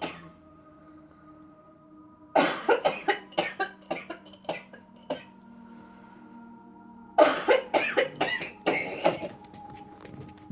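A person coughing in two fits of short, rapid coughs: one about two seconds in lasting around three seconds, another about seven seconds in lasting around two seconds. Soft sustained tones of background music run underneath.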